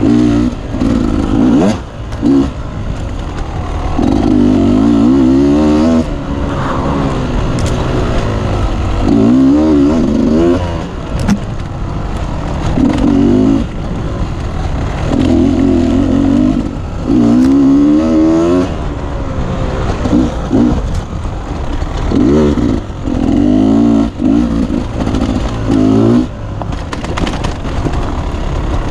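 Beta 250 RR enduro motorcycle engine revving hard in repeated bursts of throttle, each a second or two long with short drops in between, as the bike is ridden off-road.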